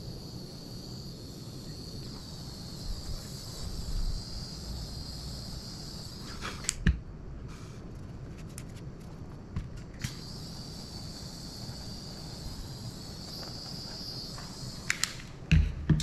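Small electric heat gun's fan running with a steady high whine and low hum while heat-shrink tubing over wire connectors is shrunk. It is switched off with a click about seven seconds in, back on with a click about three seconds later, and off again shortly before the end, followed by a few clicks from handling the parts.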